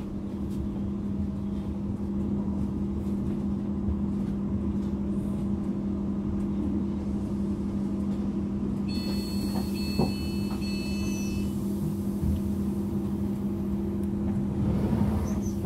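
Steady electrical hum from a stationary Class 444 Desiro electric multiple unit, heard inside the carriage. About nine seconds in comes a couple of seconds of electronic beeping.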